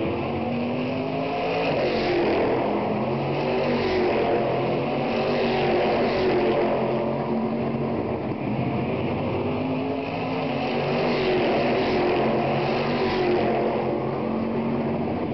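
Stock Car Brasil race cars running on the circuit. The engine note swells and fades several times as cars go by, and its pitch rises and falls with acceleration and gear changes.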